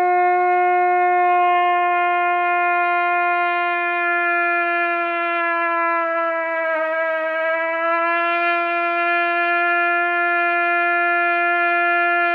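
Trumpet holding one long G that sags slightly in pitch about halfway through and comes back up: a pitch-bending exercise within the note, aiming the air to find the center of the pitch where the sound is fullest.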